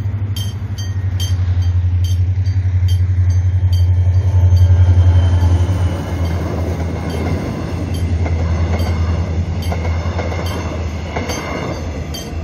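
Mugunghwa-ho passenger train, hauled by a diesel locomotive, passing over a level crossing. The locomotive's low engine drone swells to its loudest about five seconds in, then the carriages' wheels rumble and clatter over the rails. The crossing warning bell dings rapidly and steadily, plainest near the start and the end.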